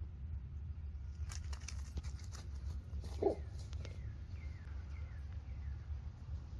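Crackling and rustling, like twigs and leaves in brush, for a couple of seconds, with one brief louder sound a little past three seconds. Then a bird gives a few short falling chirps, over a steady low rumble.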